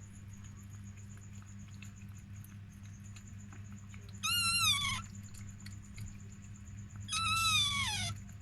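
Two high-pitched, mewing cries from a newborn Chihuahua puppy, one about four seconds in and one near the end, each dropping in pitch as it closes, over a steady low hum.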